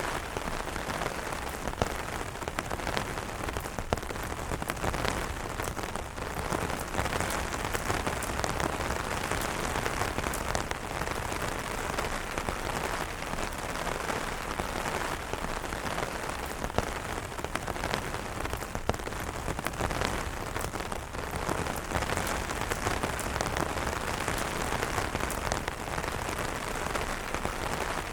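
Steady rain pattering on umbrella fabric, a dense even hiss with many individual drop taps.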